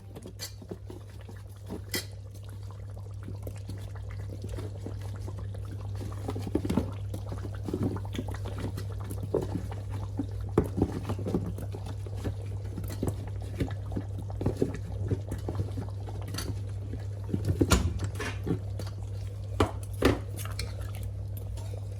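Potato pieces going into a pot of cooked meat in gravy, with wet splashes and a spoon knocking and clinking against the pot as they are stirred in. A steady low hum runs underneath.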